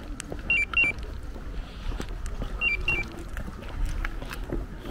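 Electronic two-tone chime: a falling pair of high beeps sounded twice in quick succession, then the same pattern again about two seconds later, over a low steady rumble.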